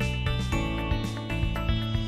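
Instrumental background music with a steady run of notes.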